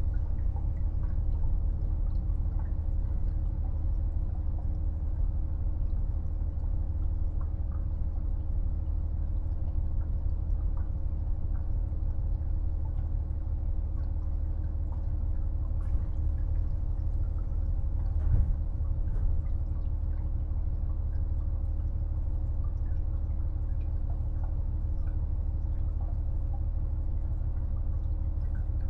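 Steady noise inside a KiHa 48 diesel railcar: a low engine drone with a constant hum, and one louder thump about eighteen seconds in.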